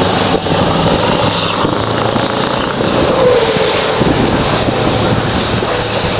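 Scania bonneted 530 V8 truck's 16-litre V8 diesel engine pulling away and driving off, a loud steady engine note whose pitch drops about three seconds in.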